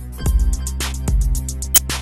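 Background music with a steady bass line and fast ticking cymbals. A heavy drum beat comes in about a quarter second in.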